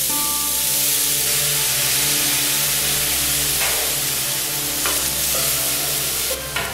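Chopped fresh herbs sizzling as they fry in hot oil in an aluminium pot, with a couple of light knocks about halfway through.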